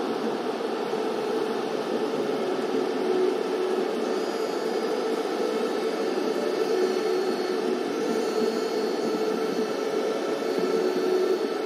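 Steady, even static-like noise with a faint hum running through it.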